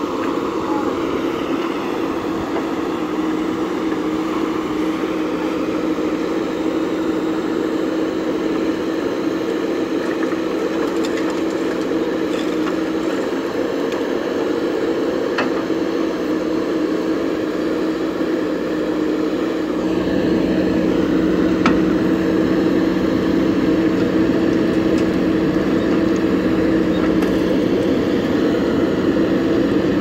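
The four-cylinder diesel engine of a JCB 3DX backhoe loader running steadily under working load. About two-thirds of the way in it gets deeper and a little louder as it takes more load.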